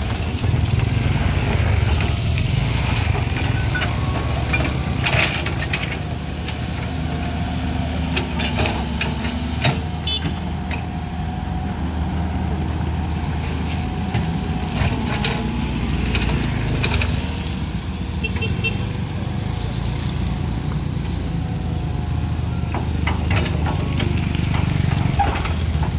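Engines running steadily at a road-building site: a tracked excavator's diesel and motorcycles passing close by, with scattered clanks and knocks.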